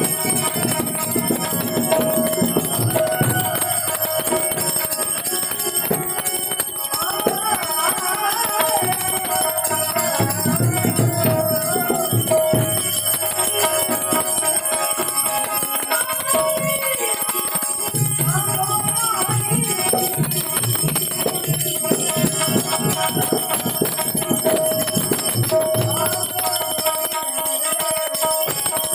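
A man singing a Gujarati devotional bhajan with harmonium accompaniment, the harmonium holding a steady tone under his voice, while small metal bells or cymbals ring without a break.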